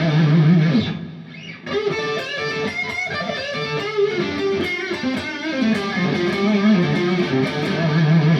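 Electric guitar, a Fender Stratocaster on its neck pickup, played through a three-MOSFET distortion pedal voiced like a cranked Marshall amp: a bright, aggressive distorted tone. The playing dips in level about a second in, then picks up again.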